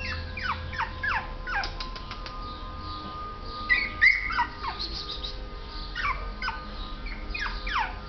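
Yorkshire terrier puppy whimpering: repeated short, high whines that fall in pitch, coming in clusters of several at a time, the loudest about four seconds in.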